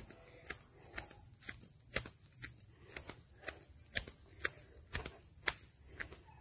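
Footsteps walking at an even pace along a dirt track, about two steps a second, each a short sharp tap.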